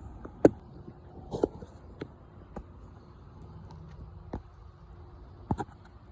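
A handful of short, sharp clicks or taps at irregular intervals, the loudest about half a second in, over a faint steady background.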